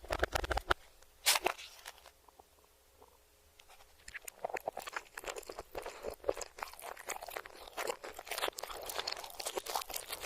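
Close-miked crunchy chewing of food, played in reverse: a dense run of crisp crunches, one loud crunch about a second in, a quiet pause of about two seconds, then steady crunching again from about four seconds in.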